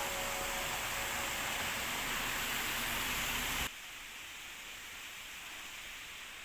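Steady rush of running water from a mountain stream, dropping suddenly to a quieter hiss about three and a half seconds in.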